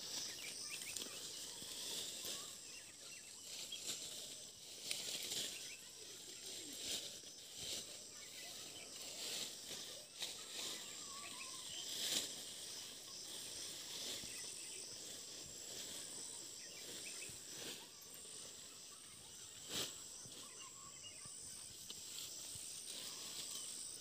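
Faint rustling and crackling of cut leafy branches and grass being gathered onto a cloth and bundled, in short irregular bouts, under a steady high chirring of insects.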